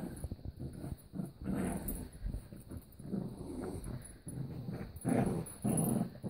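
Small dog making short, low play noises several times, loudest near the end, while it mouths and shakes a plush toy.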